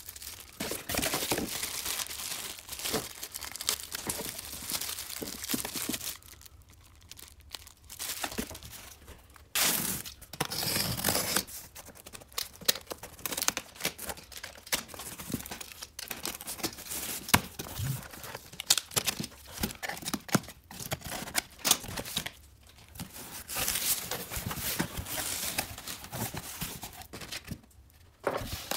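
A cardboard parcel being unpacked by hand: a plastic bag crinkling, packing tape tearing off the box, and crumpled paper packing and cardboard rustling, in irregular bursts with short pauses.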